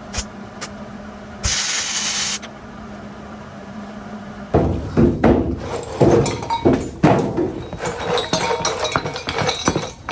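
A steady low hum with a short burst of hiss about a second and a half in, then, from about halfway through, a busy run of irregular clinks, knocks and clatter of hard objects being handled.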